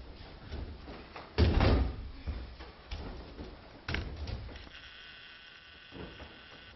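Aikido practitioners landing on the mat from throws: a heavy thud about one and a half seconds in, the loudest sound, and a lighter thud about four seconds in, with smaller knocks between. A steady high-pitched tone lasts about two seconds near the end.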